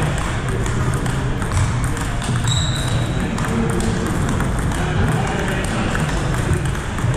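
Table tennis ball clicking off paddles and the table during a rally, over a steady hubbub of voices and play from other tables in a large gym hall. A brief high-pitched squeak comes about two and a half seconds in.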